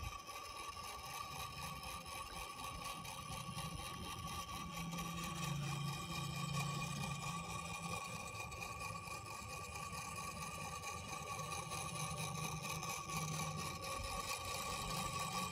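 Small DC toy motor of a solar windmill kit whirring steadily as the solar panel drives it, spinning the plastic fan blades; a steady high whine with a lower hum that comes and goes.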